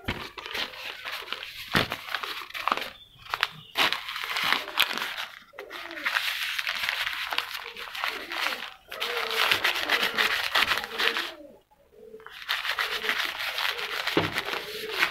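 Crumpled dry newspaper rubbing and rustling against window glass in repeated wiping strokes, with short pauses between them.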